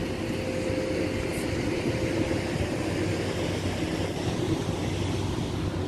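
Strong wind buffeting the microphone: a steady, uneven rumble of wind noise.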